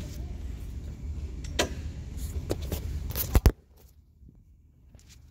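Handling noise on the camera's own microphone as it is fixed in place: rubbing and scattered clicks, then two sharp knocks about three and a half seconds in, after which it suddenly goes much quieter.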